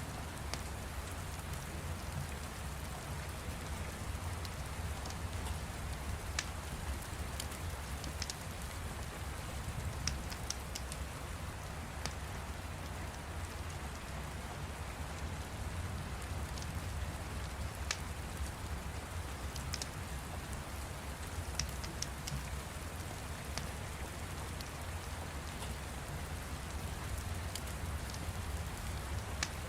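Steady rain over a low rumble, with scattered sharp crackles and pops from a fire, irregularly spaced.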